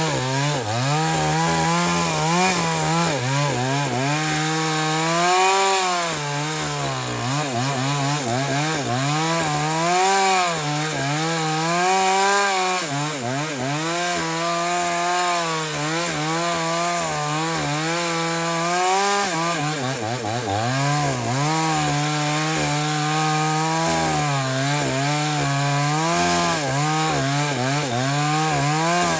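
JCK two-stroke chainsaw with a 22-inch bar cutting wood at high revs. The engine pitch sags repeatedly as the chain bites into the cut and picks back up as the load eases.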